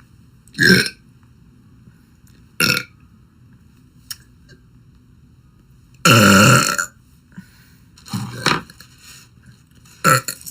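A young woman burping, five burps in all: two short ones, a long loud one about six seconds in, then two more.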